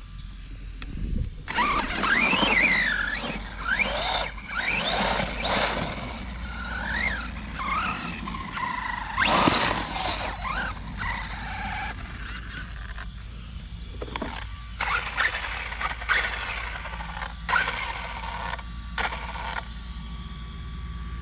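Electric motor of a Redcat Camo TT Pro RC trophy truck, run on a 3S LiPo, whining under throttle with its pitch sweeping up and down in quick bursts. The first half is the busiest, then shorter separate throttle blips follow, ending a little before the close.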